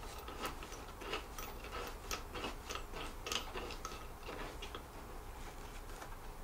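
Small irregular clicks and ticks, several a second, from a bolt being turned by hand into a chair's leg bracket. They thin out about five seconds in.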